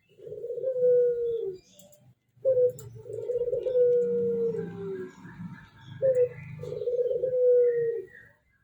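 Ringneck dove cooing: three calls, each a short note followed by a long drawn-out coo that falls slightly in pitch.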